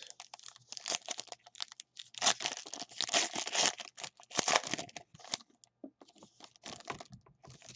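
Clear plastic trading-card pack wrapper crinkling and being torn open by hand: a dense run of quick crackles, loudest a couple of seconds in, thinning out near the end.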